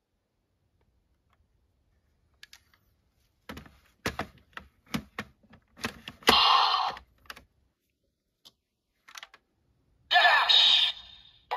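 Plastic toy transformation gun being handled: a run of sharp plastic clicks and clacks starting about three and a half seconds in. Two short, loud electronic sounds from the toy's speaker come through, one about six seconds in and one near the end.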